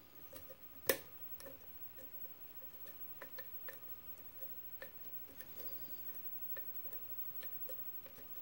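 Lock pick working the pin stack of a brass lock cylinder loaded with security pins, held under tension: a scatter of small, irregular metallic clicks and ticks, one sharper click about a second in.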